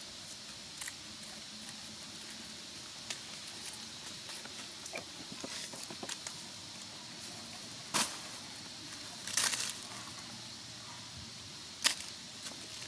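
Dry leaf litter crackling as the monkeys shift about: a sharp crack past halfway, a short rustling crackle a second or so later, and another sharp crack near the end, over a steady faint hiss.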